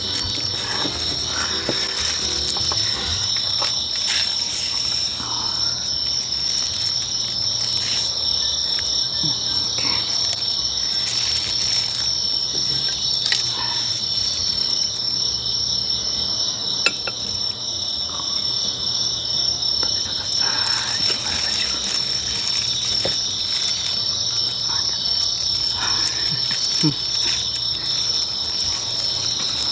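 Crickets chirping in a continuous high-pitched trill. Over it come scattered small clicks and rustles of chopsticks and plastic gloves tearing kimchi on a plate.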